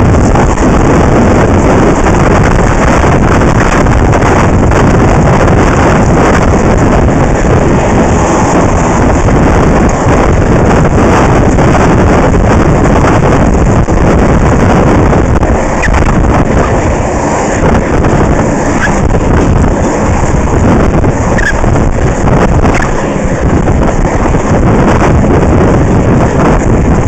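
Wind buffeting the microphone of a skater-mounted action camera, mixed with the rumble of inline skate wheels rolling on asphalt. It is loud and steady throughout.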